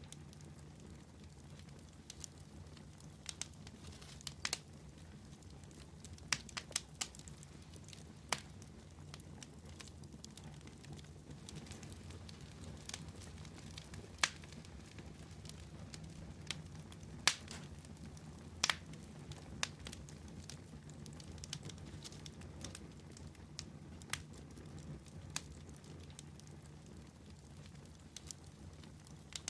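Wood campfire burning, with sharp irregular crackles and pops over a steady low rumble of the flames.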